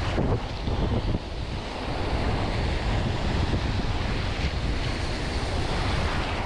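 Strong wind buffeting the microphone over surf washing and breaking in shallow sea water, a steady, even rush with a heavy low rumble.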